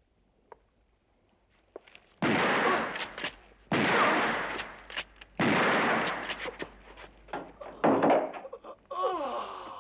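Four shotgun blasts, each starting suddenly and trailing off, about two, three and a half, five and a half, and eight seconds in.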